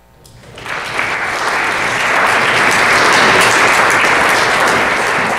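Audience applauding, building up over the first second, then holding steady.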